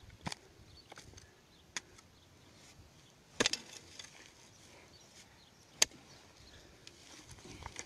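A few sharp knocks and clicks at irregular gaps, with a quick cluster of them about midway and the loudest single knock soon after, over a faint outdoor background.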